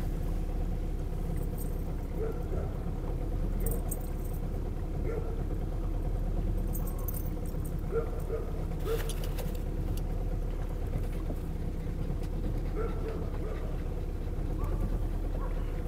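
Small motorboat's engine running steadily at cruising speed, a constant low drone, with a few brief faint rattles.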